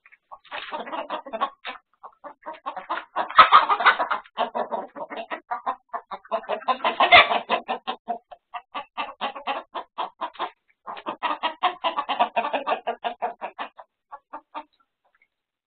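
A flock of chickens clucking and cackling in rapid runs of short calls, typical of alarm in a coop with a predator (a weasel) among them. The loudest squawks come about three and a half and seven seconds in, and the calls thin out and stop near the end.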